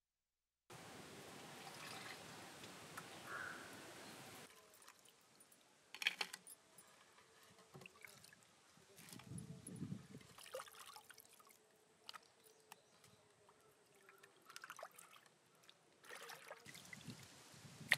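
A few seconds of even outdoor hiss, then faint, scattered clicks and light clatter with trickling water as wet seafood is handled in clay pots.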